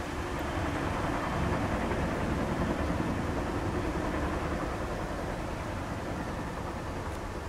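Low rumble of a Boeing CH-47 Chinook helicopter's rotors and engines at a distance. It swells a second or two in, then slowly fades.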